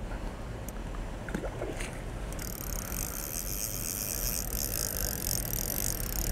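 Spinning reel's drag buzzing steadily as a hooked fish runs and pulls line off, starting about two and a half seconds in, over a low wind rumble on the microphone.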